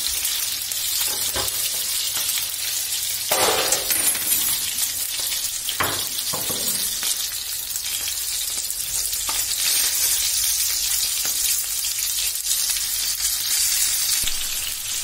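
Chicken skewers sizzling steadily as they fry in hot oil in a pan. A few short clatters of a metal fork against the pan come a few seconds in, as the skewers are turned.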